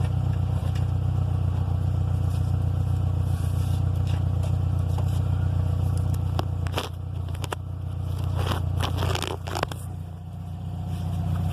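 2005 Subaru Impreza WRX STI's turbocharged flat-four engine running with a steady drone, with a cluster of sharp crunching, scraping noises in the second half that fit the grinding from the gearbox, the fault in which the shifter barely moves at high revs. The engine's level dips briefly about seven and ten seconds in.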